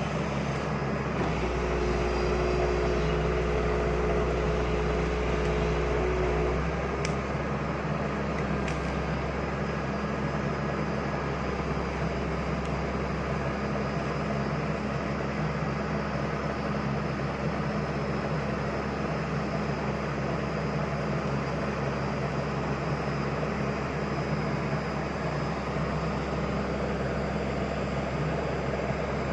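Komatsu hydraulic excavator's diesel engine running steadily while the arm and bucket work. A higher steady whine joins for about five seconds near the start.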